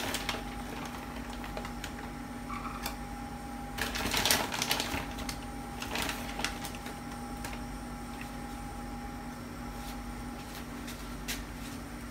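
Shredded mozzarella being scooped by hand out of a plastic bag into a measuring cup: light rustling and clicking, busiest about four seconds in, over a steady low hum.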